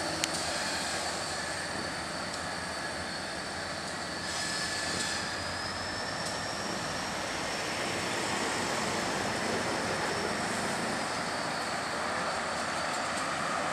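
Steady drone of a diesel freight train's locomotives, an EMD SD40-2 leading, moving slowly toward the camera, mixed with road traffic passing alongside.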